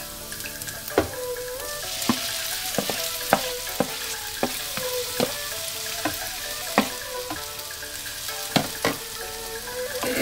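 Sautéed vegetables and pickled green beans sizzling in a nonstick frying pan, the sizzle swelling about two seconds in as the wet beans go into the hot pan. A wooden spoon stirs them, knocking sharply against the pan a dozen or so times.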